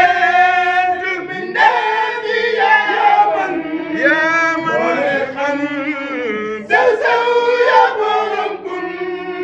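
A group of voices chanting a Sufi zikr together in long, drawn-out melodic phrases.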